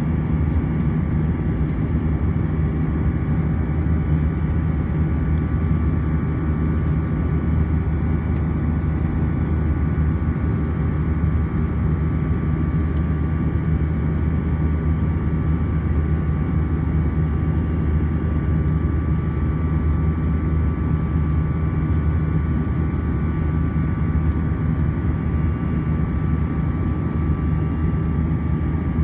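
Cabin noise of an Airbus A320-200 climbing after takeoff, heard from a window seat by the wing: a steady drone of the jet engines and rushing air. A few thin, even whining tones sit on top of the low rumble.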